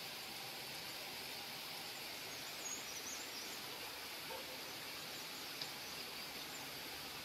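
Faint, steady outdoor ambience, an even background hiss, with a few brief high chirps about three seconds in and again near six seconds.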